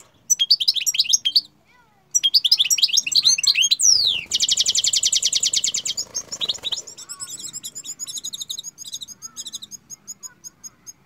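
Caged finch singing: bursts of fast high twittering with a short pause after the first, a falling whistled sweep, then a fast even trill, and finally a run of separate sharp chirps that slow and grow fainter toward the end.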